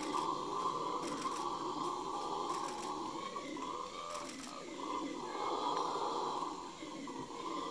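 Red howler monkeys howling: a steady, rough, droning roar that dips briefly a couple of times.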